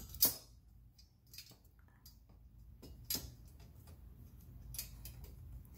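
Scattered sharp clicks and taps of a socket wrench working a bolt on a metal radiator guard, the loudest just after the start and another about three seconds in.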